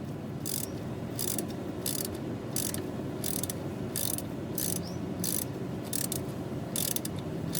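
Ratchet wrench clicking in short bursts at an even pace, about three every two seconds, as it backs a long A/C compressor mounting bolt out of its threads.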